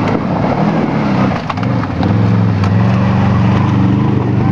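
ATV engine running at low revs under load as the quad crawls up a steep, root-strewn slope. Its pitch wavers for the first two seconds, then holds steady. A few sharp cracks of wood come about a second and a half in.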